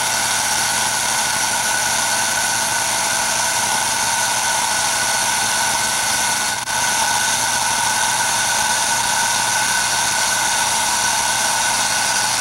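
Small electric motor running steadily with a high whine, winding up a string on a homemade contraption. It dips briefly about halfway through.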